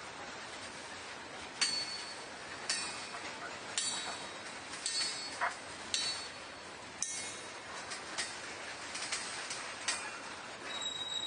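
Freight train rolling past, its wheels clanking sharply over rail joints about once a second, each clank with a metallic ring. A high wheel squeal starts near the end.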